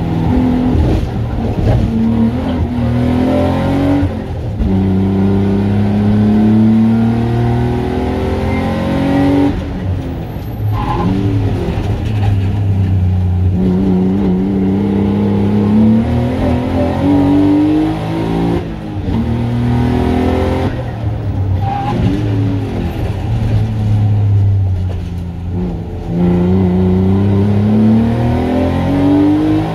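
Race car engine heard from inside the stripped cabin, accelerating hard through the gears: its pitch climbs and drops back at each upshift, several times. Twice it falls away with uneven revs as the car brakes and downshifts for corners.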